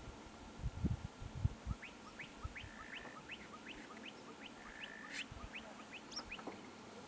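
A bird calling a long run of short rising chirps, about four a second, starting about two seconds in, with a couple of brief steady whistles among them. A few soft low thumps come early on.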